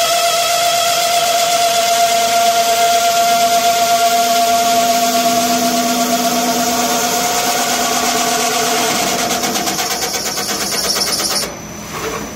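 CNC metal spinning lathe running, its roller forming a spinning sheet-metal workpiece on the mandrel, with a loud, steady whine of several held tones. The sound drops off abruptly about eleven and a half seconds in.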